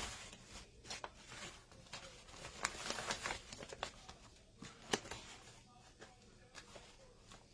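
Stiff starched cotton fabric and wired ribbon rustling and crinkling quietly as they are folded and pressed by hand, with a few sharp crackles.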